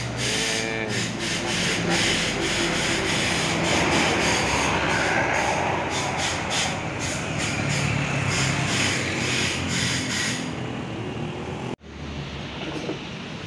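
Road traffic, a large bus passing close by with engine and tyre noise. It cuts off abruptly near the end and gives way to other steady vehicle noise.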